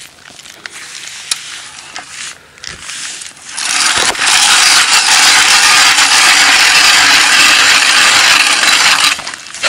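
Leningrad hand ice auger drilling into pond ice. A few faint clicks, then from about three and a half seconds in a loud, steady, hissing grind as the cutting blades shave the ice into chips, lasting about five and a half seconds and stopping shortly before the end.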